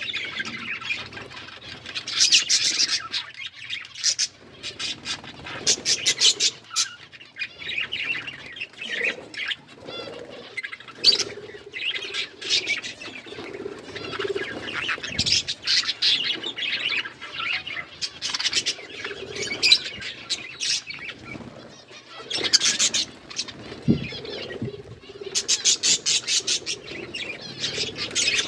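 Budgerigars chattering and chirping continuously, in dense runs of quick high chirps.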